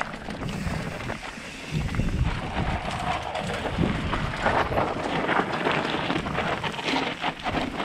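Wind buffeting a helmet-mounted camera, mixed with tyre roar and the rattle and knocks of a mountain bike on a fast descent over rough dirt. The noise gets louder about two seconds in.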